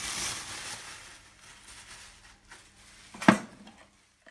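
Chopped coriander and parsley being scraped off a knife into a plastic mixing bowl: a soft hiss at first, then light scraping and one sharp knock of the knife against the bowl about three seconds in.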